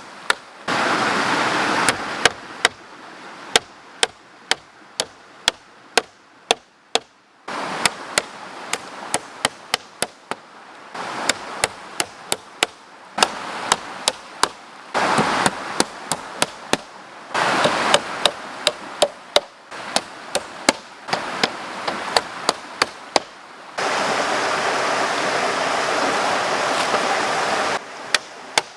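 Repeated sharp chopping knocks of a blade on wood, about two a second, over the steady rush of a river that drops in and out abruptly several times.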